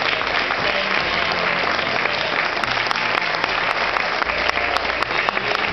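Theatre audience applauding steadily for the cast.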